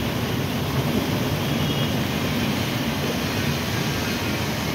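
Steady rush of muddy flash-flood water pouring down a flooded street channel, with a car and a small truck wading through it, water churning around their wheels.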